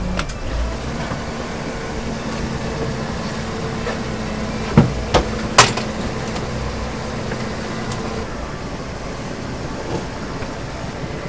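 Small motorboat's engine running steadily at low speed, its hum cutting out about eight seconds in. Three sharp knocks come a little after the middle, as the crab-trap buoy is hauled in over the side of the boat.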